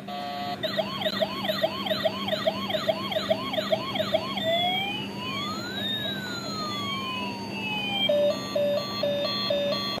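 Toy ambulance's electronic siren cycling through its patterns. First a fast yelp of about three rising sweeps a second, then about four seconds in a slow rising-and-falling wail, then a quick beeping pattern near the end, all over a steady low hum.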